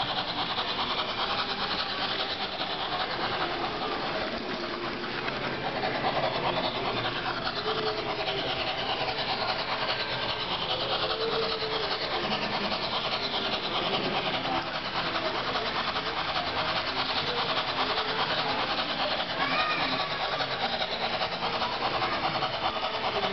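HO model trains running on a layout: a steady rasping whir of small electric motors and metal wheels on the rails, with a murmur of voices in the hall behind.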